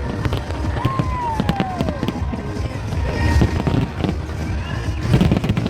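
Fireworks display going off: a dense run of sharp bangs and crackles over deep booms.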